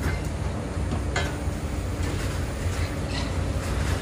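Heavy demolition excavators' diesel engines running with a steady low rumble, with a couple of short sharp cracks of concrete and debris breaking about a second in and near the end.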